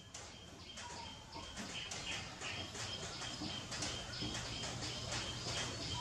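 Small birds chirping rapidly and repeatedly in short high notes, over a steady low hum.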